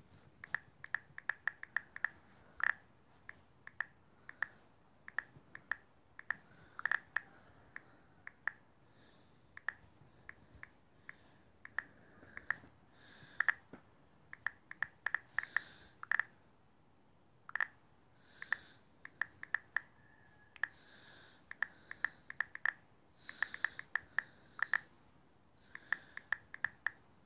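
Key-press clicks of a smartphone's on-screen keyboard as a message is typed. They come as short, irregular runs of clicks, all alike, with brief pauses between them.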